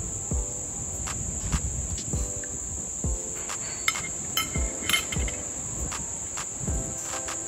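Insects chirping in a steady, high-pitched drone, with scattered small clicks and knocks over it.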